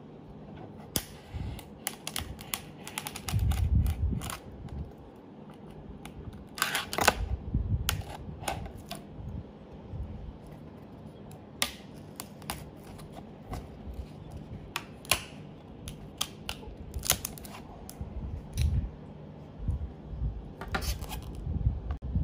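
Plastic shrink-wrap film being cut and pulled loose around a small boxed product: irregular snips, clicks and crinkles, with a few dull bumps of hands handling the box.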